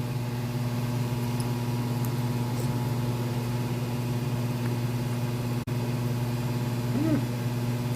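Steady low electrical hum, like a room appliance, with a brief murmured voice sound about seven seconds in. The sound cuts out for an instant shortly before that.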